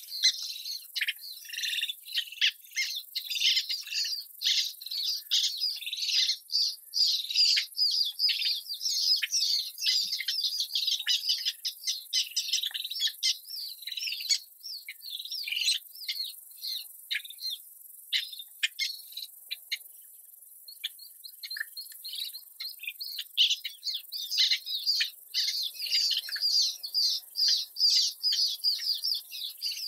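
Birds calling in a dense, rapid run of short, high chirps, thinning out for a couple of seconds about two-thirds of the way through.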